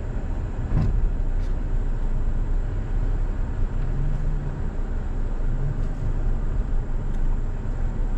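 A third-generation Toyota Tacoma heard from inside the cab while driving slowly on a dirt trail: a steady low engine and road rumble, with a few faint knocks as it goes over bumps.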